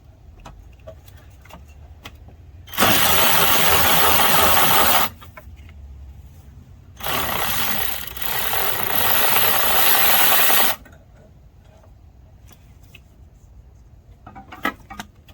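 Two runs of a compressed-air tool, its air exhaust hissing loudly: one about two seconds long, then one about four seconds long that gets louder partway through. The tool is breaking a fastener loose.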